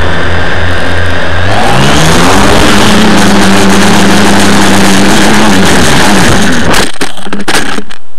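Quadcopter's electric motors and propellers spinning up, heard close from the craft itself. A steady low whine rises about a second and a half in as it lifts off, holds in a hover, then sags when one motor's speed controller (ESC) fails. The craft drops and hits the ground with a clatter of knocks about seven seconds in, and the motors stop.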